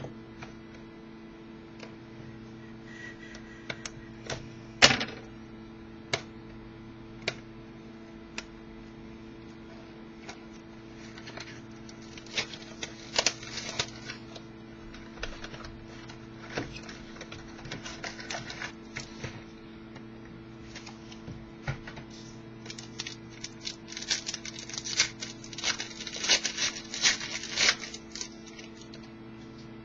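A sealed box of trading cards being opened by hand: a few sharp clicks and taps, then long stretches of crinkling and rustling as the packaging is torn and the cards are handled. A steady electrical hum runs underneath.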